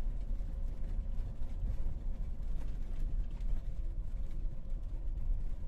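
Camper van driving on a sandy dirt track, heard from inside the cab: a steady low rumble of engine and tyres with a faint steady hum above it.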